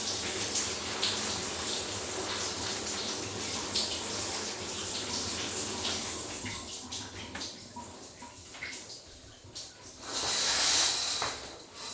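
Shower water running and splashing, then dying away after about six seconds to scattered drips and splashes as the flow is turned off. A brief, loud hiss comes near the end.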